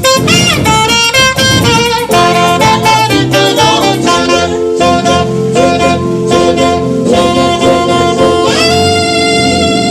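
Saxophone playing a melodic instrumental line over band accompaniment, with bends between notes, then holding a long bright note near the end.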